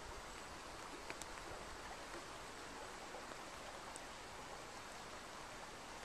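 A small river flowing over shallow rapids: a faint, steady rushing of water, with a couple of tiny clicks about a second in and near the middle.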